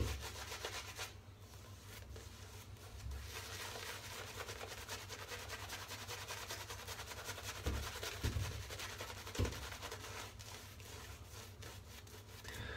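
Shaving brush swirling thick shaving-soap lather over the face, a continuous wet brushing of bristles over skin and stubble.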